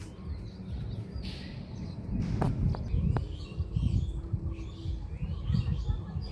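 Several small birds chirping in short, scattered notes, over an uneven low rumble, with two sharp clicks about two and three seconds in.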